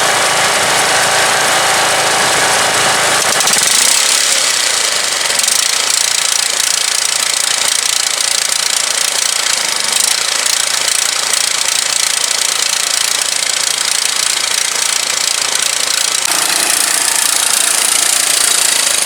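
Turf-Power lawn tractor's small engine running steadily, with a rattly, knocking edge, on a freshly cleaned and rebuilt carburetor. Its sound changes about three and a half seconds in, losing its low end, and shifts again near the end.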